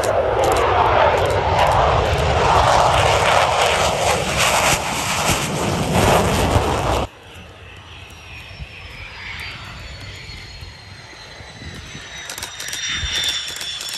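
An F-16 Fighting Falcon's single jet engine passing close on landing approach: a loud, dense rushing noise that stops suddenly about seven seconds in. After that the jet is heard more quietly from farther off on its landing rollout, with a high whine that slowly falls in pitch.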